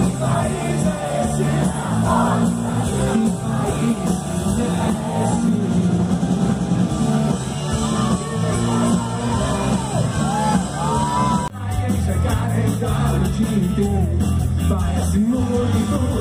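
A live rock band of electric guitars, bass, keyboards and drums plays with a male lead singer, picked up by a phone near the stage. About eleven and a half seconds in it cuts abruptly to another stretch of the band's live music.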